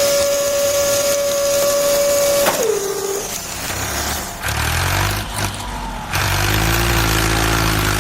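A long, steady horn-like blast that sags in pitch and cuts off about three seconds in, followed by a vehicle engine rumbling with hiss.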